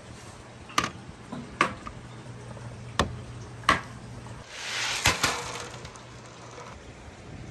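Four sharp knocks, a second or so apart, as wooden marble-run track pieces are handled and set down on aluminium boards and a plastic channel. They are followed by a brief rushing rattle with a couple of sharp clacks in it.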